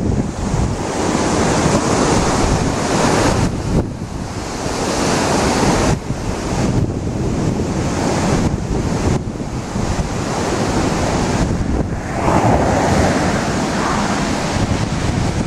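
Wind rushing over the microphone, a loud noise that swells and drops back in gusts.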